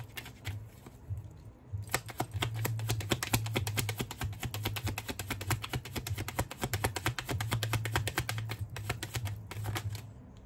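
A deck of tarot cards being shuffled by hand: a fast, even run of card clicks, about ten a second, lasting several seconds, as cards are drawn for the next question.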